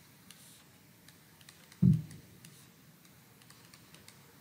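Light, scattered clicks of a stylus tapping on a drawing tablet as labels are handwritten, with one short low thump about two seconds in.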